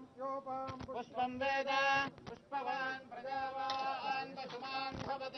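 A male voice chanting Sanskrit Vedic mantras in long, held notes.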